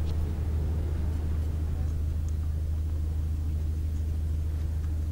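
A steady low rumble that does not change.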